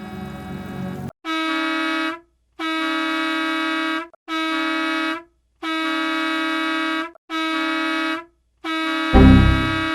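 Bus air horn sound effect, played as repeated edited variations. A lower, rumbling version runs for about the first second, then come six steady blasts of about one to one and a half seconds each, with short gaps between them. A loud low boom joins the last blast near the end.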